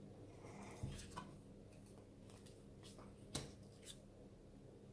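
Oracle cards being handled and turned over on a tabletop: a few soft taps and slides, the clearest about three and a half seconds in, over a faint steady hum.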